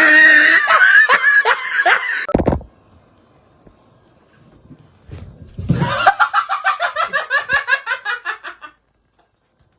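A person laughing hard in loud bursts, a short break, then another long run of rapid, evenly pulsed laughter that stops abruptly.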